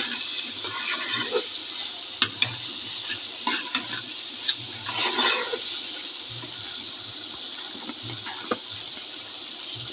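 Spiced chickpeas frying in a karai with a steady sizzle, while a spatula stirs them, scraping and knocking against the pan every second or two.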